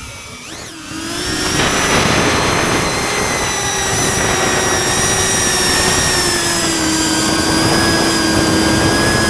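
SpeedyBee 35 FPV cinewhoop drone's brushless motors and ducted propellers whining steadily over a rushing airflow noise. A brief rising-then-falling sweep in pitch comes about half a second in; from about a second in the whine is louder and close up, as heard on board.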